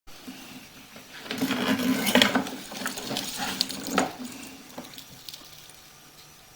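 Sewer inspection camera head and push cable knocking and scraping inside a drain pipe. The clattering is densest about a second and a half in, and a sharp knock comes around four seconds in before it fades.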